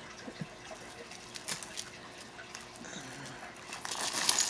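Strands of beaded and pearl necklaces clicking against each other as they are pulled out of a tangle, with a plastic mailer bag rustling louder near the end.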